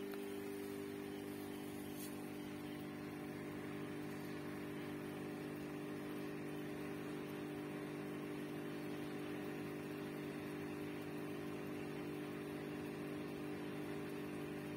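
Aquarium pump humming steadily, a low electrical hum with a faint hiss behind it.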